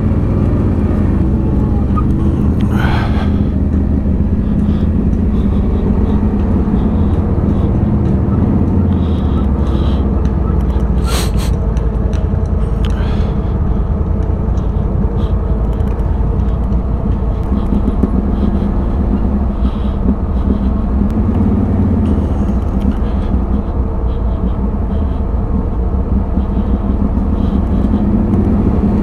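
A 1000 cc V-twin ATV engine running steadily at low revs while the quad creeps along, with a few sharp knocks, clearest about 3 and 11 seconds in.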